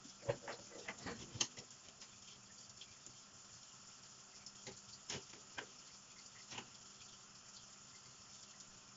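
Kitchen tap running in a thin stream, with clicks and knocks as a plastic sink mat and wire dishwasher racks are handled: a cluster in the first second and a half, then a few more around five to six and a half seconds in.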